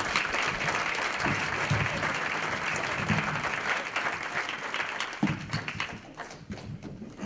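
Banquet audience applauding, the clapping thinning out and fading about five seconds in.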